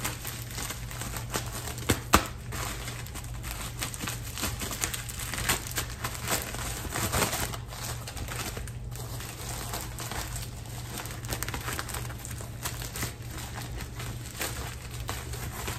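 Sheet of white wrapping paper crinkling and rustling as it is folded by hand around a gift item, in irregular crackles with a sharp tap about two seconds in.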